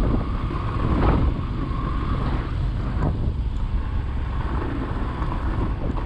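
Yamaha 150 cc motorcycle riding over a rough gravel track, its engine running steadily under wind rush on the microphone. Two brief knocks come about one and three seconds in.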